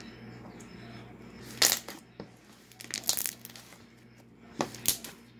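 Fingers squeezing and pressing a glossy slime, making a few short, sharp crackling pops and squelches: one about one and a half seconds in, a cluster around three seconds, and two more near the end.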